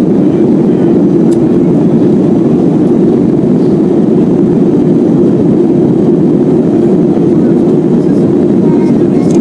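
Steady cabin roar of a Boeing 737-300 in flight: its CFM56-3 turbofan engines and the airflow over the fuselage, heard from a window seat as an even, deep rushing noise.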